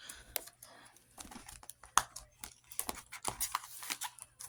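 Paper being handled, rustling and crinkling, with scattered light taps and clicks; the sharpest tap comes about two seconds in.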